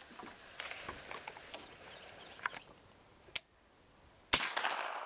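Suppressed AR-10 rifle in .308 firing two shots about a second apart, the second the louder, with its echo trailing off slowly afterwards.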